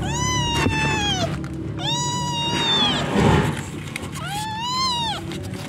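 Newborn kittens mewing: three long, high-pitched cries of about a second each, rising and falling slightly. A brief low thump about halfway through is the loudest sound.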